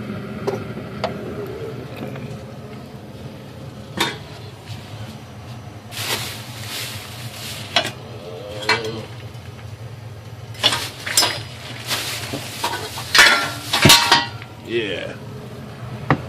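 Small objects being handled and rummaged through: rustling and clattering with scattered sharp clicks, in several bursts that are loudest a couple of seconds before the end. A low steady hum runs underneath.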